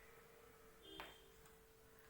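Near silence: a faint steady hum, with one faint short click about a second in.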